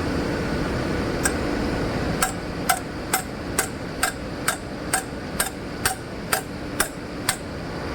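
Hammer tapping on metal in an even rhythm: one strike, then about a dozen light, ringing strikes a little over two a second, over steady machinery noise.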